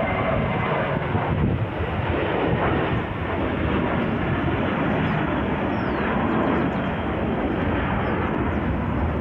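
Wind blowing across a phone's microphone: a loud, steady rush of noise, heaviest in the low end.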